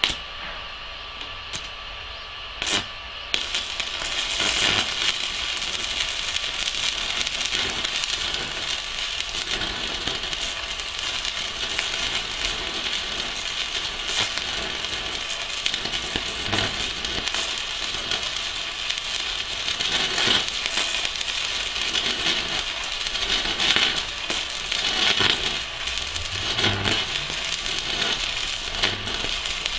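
Stick (MMA) welding arc from a Pocweld MMA 200 mini inverter at 160 amps with a 3 mm electrode, crackling and hissing steadily with scattered sharp pops. The first three seconds are quieter apart from a few sharp clicks, and the steady crackle starts about three seconds in.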